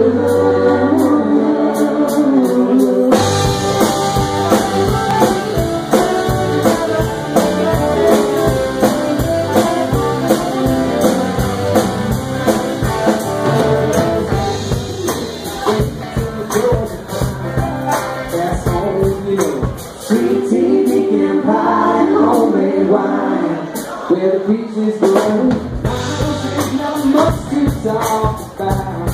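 Live band playing a song with vocals, electric guitars and drums. The bass drops out for a few seconds about two-thirds of the way through, then returns.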